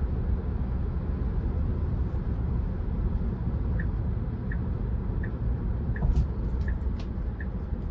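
Steady road and tyre rumble inside a moving Tesla Model 3's cabin. About halfway in, the turn-signal indicator starts ticking: a short, high tick about every 0.7 seconds, as the car signals for a lane or turn choice.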